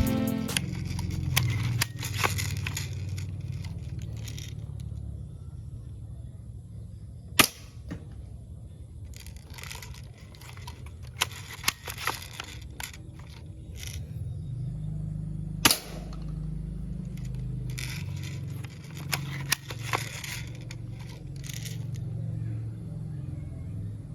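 Toy soft-bullet gun firing: two sharp shots about eight seconds apart, with several lighter clicks and clacks between them over a low steady rumble.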